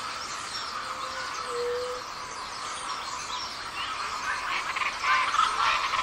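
Busy tropical rainforest dawn chorus, many birds calling at once over a steady high chorus. A single low hooting note comes about a second and a half in, and louder calls build near the end.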